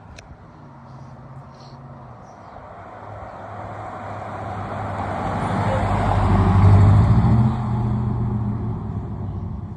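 5.7-litre Hemi V8 pickup with a newly changed exhaust pulling away under acceleration. The exhaust note builds over several seconds, is loudest about seven seconds in, then eases off.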